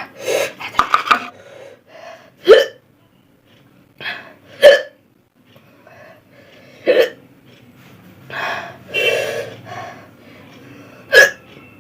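A person hiccuping repeatedly: four short, sharp hiccups about two to four seconds apart, with quieter breathing and mouth noises between them.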